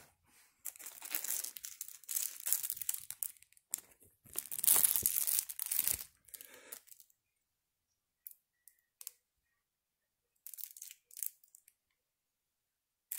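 Thin clear plastic protective bag crinkling and rustling as sunglasses are slid out of it, in dense bursts for the first six seconds, then quiet apart from a few brief faint crinkles later on.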